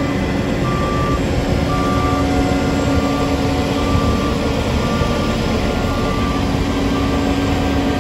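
Heavy diesel engines of a dump truck and asphalt paving equipment running steadily, with a backup alarm beeping about once a second.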